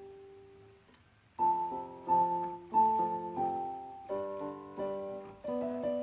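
Piano music: a single note rings and fades, then after a short lull a run of chords begins about one and a half seconds in, struck every half second or so.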